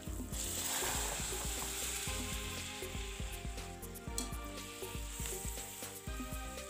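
A papadam frying in hot oil in a kadai: a loud sizzle that starts at once as it drops in and puffs up, easing after about two seconds and flaring again about four seconds in.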